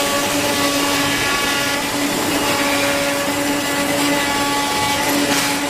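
RZCUT-250 CNC knife cutting machine running: a steady motor hum and whine with several constant tones. A short rush of noise comes near the end.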